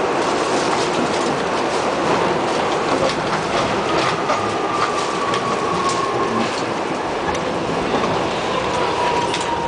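R68 subway car running at speed through a tunnel, heard from inside the car: a steady rumble of wheels on rail with scattered rail-joint clicks. A faint high whine slides slowly down in pitch about four seconds in and again near the end.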